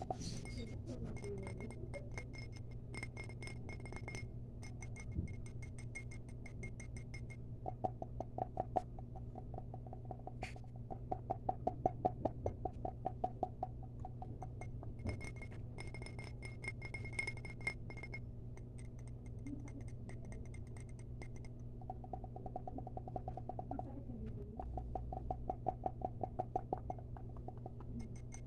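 Fast ASMR tapping: rapid runs of light taps at about ten a second, some with a glassy ringing tone, the loudest run near the middle.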